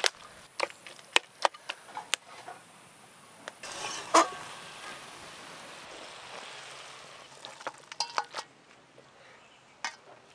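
Metal spatula scraping and knocking against an aluminium kadai as a thick curry is stirred, with a soft sizzle from the pan between the strokes. The loudest knock comes about four seconds in, and more scrapes and taps near the end as the curry is scraped out onto a steel plate.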